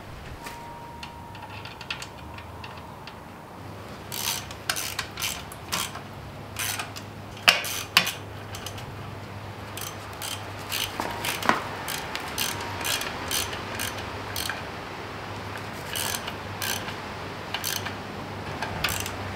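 Hand ratchet wrench clicking in short, uneven runs as bolts are run down on an engine's flywheel damper plate, starting about four seconds in.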